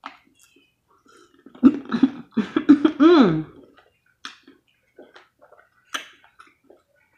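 A loud, drawn-out burp in two parts starting about a second and a half in, the second part sliding down in pitch at the end. Short wet clicks of chewing come before and after it.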